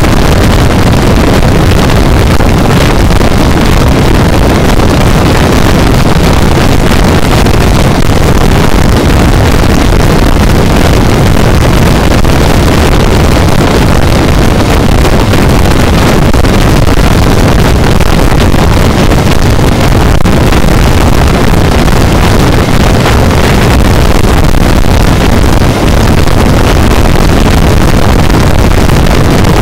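Heavy, steady wind noise buffeting the microphone of a Honda CB400 motorcycle riding at highway speed, with the bike's engine and road noise blended in underneath.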